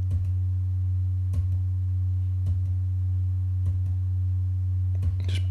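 A steady low hum, with faint keyboard clicks about once a second as Ctrl+Z is pressed over and over to undo.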